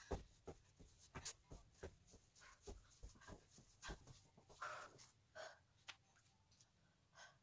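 Faint soft thumps of feet and knees landing on a foam exercise mat at an irregular pace, with heavy panting breaths from exertion. The thumps stop about four seconds in, leaving a few breaths.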